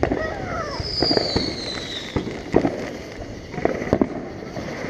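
Fireworks going off around the neighbourhood: a string of sharp pops and bangs, with a high whistle falling in pitch starting about a second in.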